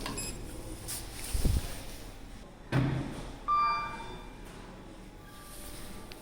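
Passenger lift doors working: a low thump and a sharp knock as the doors move, then a single chime ringing out and fading.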